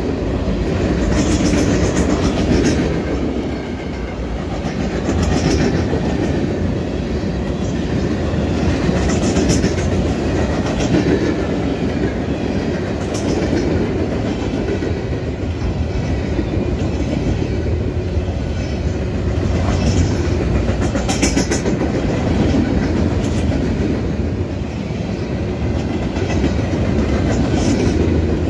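Freight train cars rolling past, their steel wheels clicking over rail joints in an uneven rhythm over a steady rumble. Brief high-pitched wheel squeals come and go, the clearest about two-thirds of the way through.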